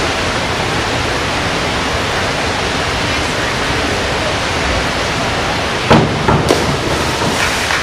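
Steady rushing noise of an indoor pool hall. About six seconds in comes a short, sharp burst and another about half a second later, around the springboard diver's entry into the water.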